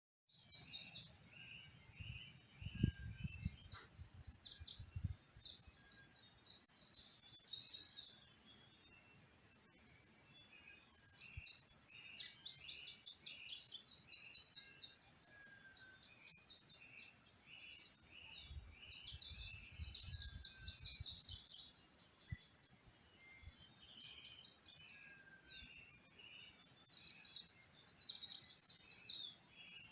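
Tropical forest dawn chorus of birds and insects. A long, rapid trill repeats every few seconds, each one lasting several seconds, over a steady run of shorter, lower chirps and a faint high ticking. Low rumbles come twice.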